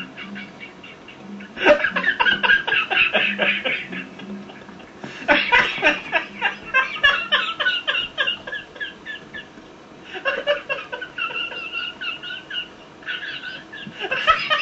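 A teenage boy in a helpless fit of laughter. It comes in several long bursts of rapid ha-ha pulses, with short, quieter pauses for breath between them.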